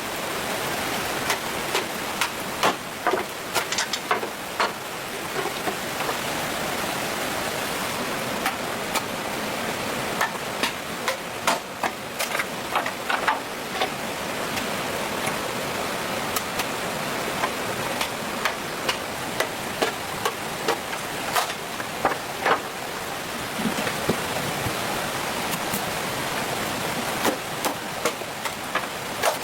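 Irregular sharp knocks and clicks, in quick clusters at times, over a steady hiss.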